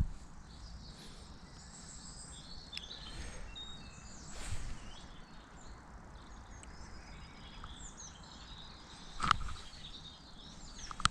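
Small birds calling and chirping over a steady outdoor background hiss, with a brief rustle partway through and a sharp thump late on.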